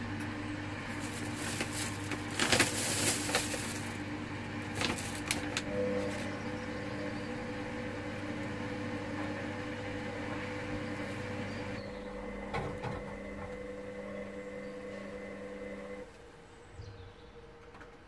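Hoover Dynamic Next front-loading washing machine tumbling a wash: the drum motor hums steadily while wet laundry sloshes and knocks inside the drum, loudest in the first few seconds. The hum cuts out in two steps, the second about two seconds before the end, as the drum stops turning.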